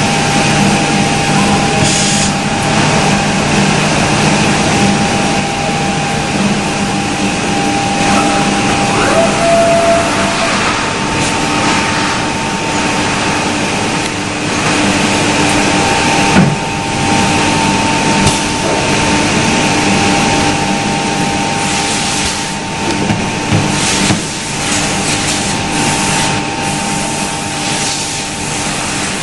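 HOMAG Optimat BOF CNC woodworking machining centre running, with a steady whine of two close tones that drops out and comes back over a continuous hiss. A sharp knock sounds about halfway through.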